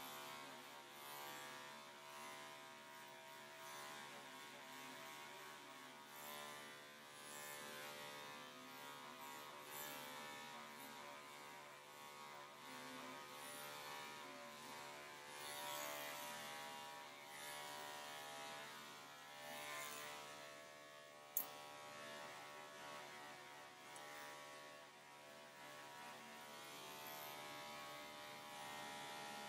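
Electric dog clippers running steadily with a humming buzz while shaving off a pelt-matted coat, the cutting noise swelling and fading as the blade moves through the hair. One sharp click about two-thirds of the way through.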